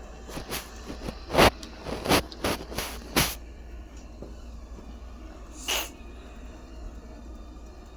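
eufy G32 Pro robot vacuum running with a low steady hum, a quick run of sharp clicks and rattles in the first three seconds, and one short hissing scrape near six seconds.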